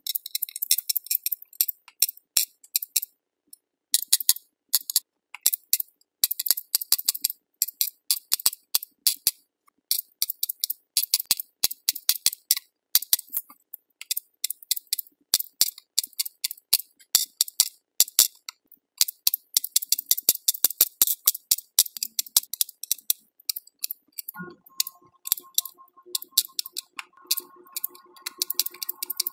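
Aquabeads pen dispenser clicking beads one at a time onto a clear plastic pegboard tray: a fast, irregular run of small sharp clicks in quick clusters with short pauses. Background music with steady tones fades in about five seconds before the end.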